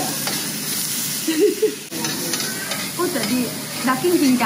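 Thin slices of beef sizzling on a hot stainless-steel grill plate, stirred and turned with metal tongs; a steady frying hiss.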